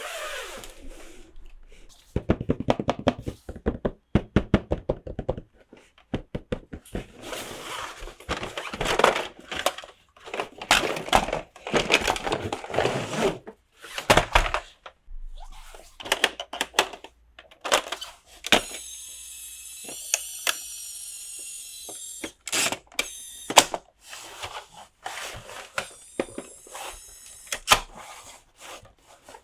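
Plastic toy pieces being handled, unwrapped and set down: a run of sharp clicks, taps and knocks. A steady high-pitched sound lasts about three seconds midway.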